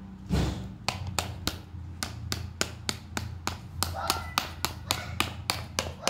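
Repeated light clicks of a plastic applicator knocking against a plastic bowl while bleaching powder is mixed with cream, about three clicks a second, over a steady low hum, with a heavier thud just after the start.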